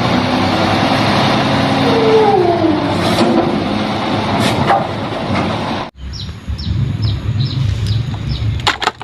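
A garbage truck sound: an engine running with a loud steady hiss and hum and a whine that falls in pitch. It cuts off abruptly about six seconds in, leaving a lower rumble with birds chirping.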